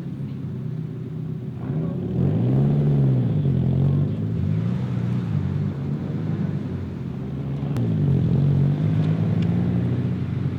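Car engine running while driving, over steady road rumble; its pitch climbs and falls about two seconds in and swings again near eight seconds as the car accelerates and changes speed.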